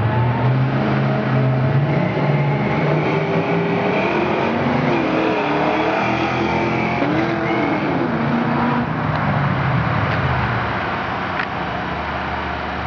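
Two V8 cars, a 1998 Mustang Cobra and a Lincoln Mark VIII, both with 4.6-litre DOHC V8s, accelerating hard side by side from a standing start. Engine pitch climbs, drops at each gearshift and climbs again, then fades as the cars pull away into the distance.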